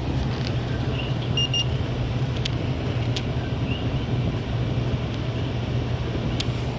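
Electric fan running steadily: a strong low hum under an even rush of air.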